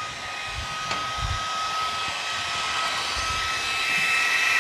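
Electric blender motor running steadily with a constant whirring hum while grinding peas, growing a little louder and hissier near the end.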